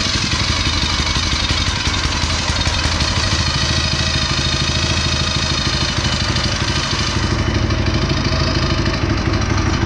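Small pull-start go-kart engine that has just caught, running steadily on choke. The higher part of its sound eases slightly about seven and a half seconds in.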